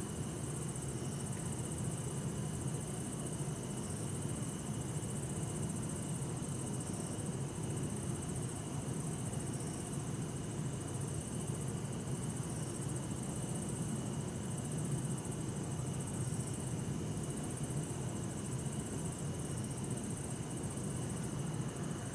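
Bell crickets (suzumushi) singing steadily in high continuous tones, over a low, even rumble of distant city traffic.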